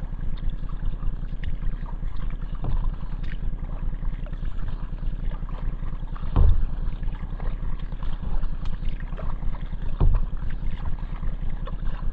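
Steady wind rumble on the microphone of a camera on a kayak's deck, with water noise from the hull on open water. Two dull thumps stand out, about six and a half and ten seconds in.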